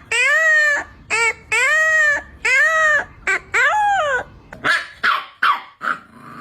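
A puppy howling and whining: about six high calls that each rise then fall in pitch, some long and some brief, followed by four shorter, rougher yelps.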